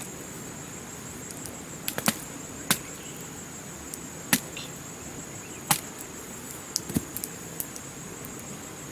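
Irregular sharp knocks of a long wooden pole being jabbed against the ground, about eight strikes, over a steady high drone of insects.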